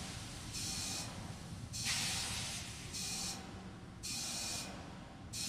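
Propellant venting on a fuelled Terran 1 rocket on the launch pad: repeated bursts of hissing, about one every second or so, each lasting well under a second, over a low steady rumble.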